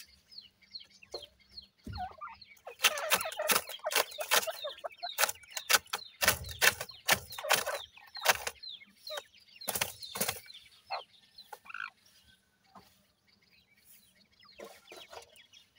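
Grey francolin chicks peeping: many short, high calls that fall in pitch. Through the middle come bursts of rustling and scratching as the birds move about on the gravel.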